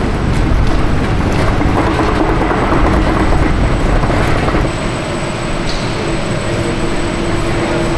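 Hand pallet truck loaded with engine blocks being pulled over paving stones: a steady rumbling rattle from its wheels and load. About five seconds in it turns quieter as it rolls onto the smooth hall floor, where a steady hum remains.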